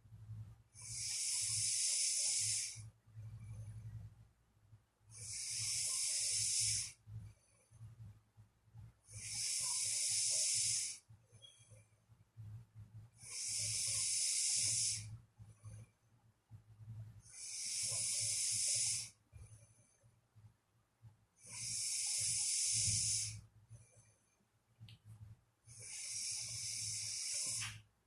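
Sleeping person breathing slowly and heavily with soft snoring: seven hissing breaths, each about two seconds long, about every four seconds, over a steady low hum.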